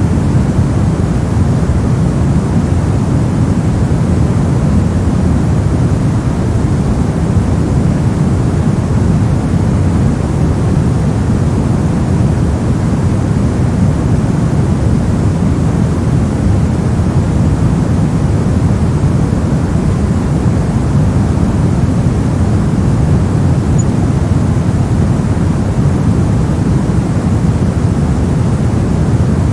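Steady generated noise for sleep, sold as white noise, with most of its weight in the low end: a deep, even rush with no events or changes.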